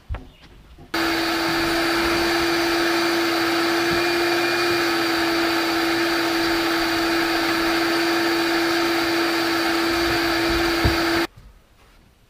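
Wet/dry shop vacuum switched on about a second in, running steadily with a strong, even hum as it sucks debris off the boat deck, then switched off shortly before the end.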